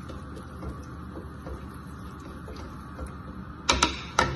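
Wooden utensils stirring rice noodles in a pot of simmering broth, with faint scraping ticks over a steady background hum. Near the end, a wooden spatula knocks sharply three times on the pot's rim.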